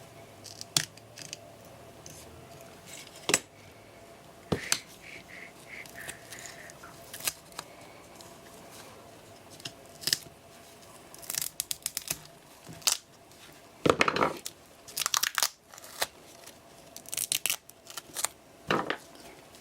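Handling sounds from a battery pack of 18650 cells being opened: scattered sharp clicks and knocks, with short bursts of tearing and crinkling as tape and wrapping are pulled away, busiest in the second half.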